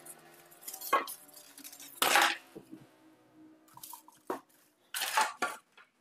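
Handling noise as things are moved and set down on a wooden surface. There are several sharp knocks and crinkly rustles, the loudest about two seconds in and again just after five seconds.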